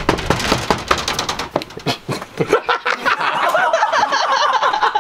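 People laughing hard: rapid breathy bursts at first, turning into high-pitched, squealing laughter about halfway through.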